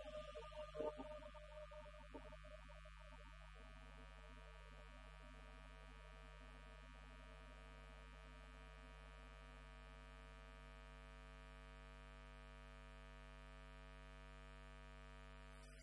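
The choir's last sung notes fade in the first couple of seconds, leaving a steady electrical mains hum with a buzzing row of overtones, faint and unchanging, which cuts off suddenly at the end.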